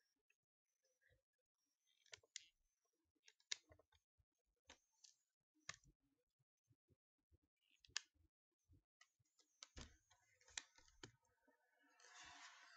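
Faint, irregular clicks of a computer mouse, with a short burst of hiss near the end.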